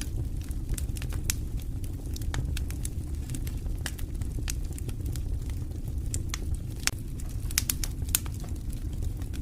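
Campfire burning, wood crackling and popping in sharp irregular snaps over a steady low rumble.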